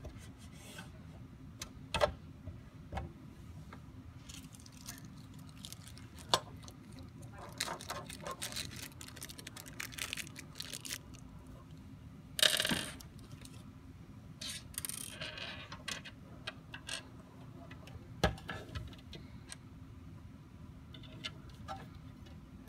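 Handling noise of a mini PC and its VESA mount bracket on a wooden desk: scattered sharp clicks and knocks of case against bracket and desk, a run of small scrapes, and one louder scrape of about half a second around halfway through. A faint steady hum lies underneath.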